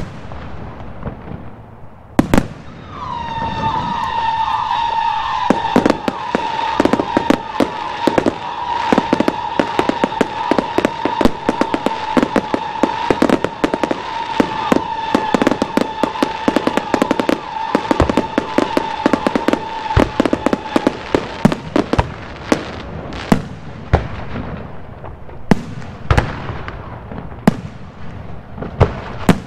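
Aerial fireworks display. One sharp bang comes about two seconds in, followed by a long dense run of rapid bangs and crackle as shells launch and burst. Over much of that run a steady high whistling tone is held for about eighteen seconds. Near the end it thins to scattered single bangs.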